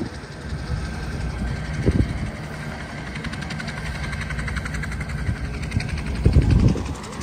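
An engine running steadily, with a fast buzz that swells in the middle. Two brief low rumbles come about two seconds in and again near the end.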